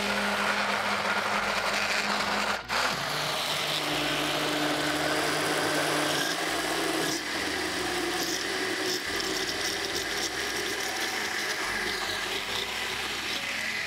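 Countertop blender motor running continuously while it emulsifies a mustard, vinegar and oil vinaigrette, with water being poured in through the lid. The sound dips briefly about two and a half seconds in.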